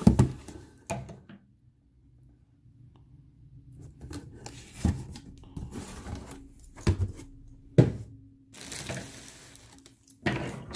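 Packaging being handled and opened by hand: a few sharp knocks and thuds, then a stretch of rustling plastic and paper near the end.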